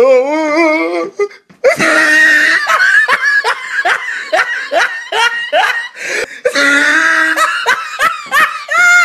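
Loud, hearty laughter in quick repeated bursts, likely a dubbed-in laugh effect, with a brief break a little past the middle. It is preceded by a short wavering, drawn-out voice.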